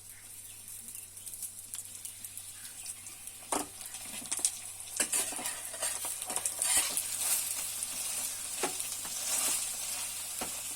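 Oil sizzling and crackling on a hot tawa under a frying cheese paratha, growing louder about halfway through, with a few sharp clicks.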